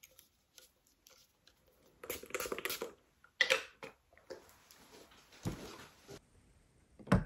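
Small bottles being handled and set down on a glass table: scattered light clicks and taps, a short rustle, and a louder thump near the end.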